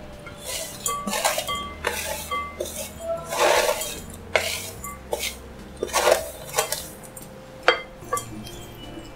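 Wooden spatula scraping roasted semolina mix off a steel plate into a glass bowl, with irregular scrapes and clinks of the steel plate against the glass bowl, and one sharp click near the end.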